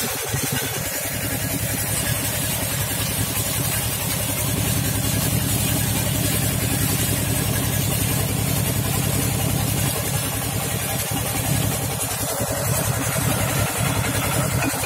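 Small engine running steadily, driving the pump of a tube well, with muddy water gushing and splashing out of the well pipe.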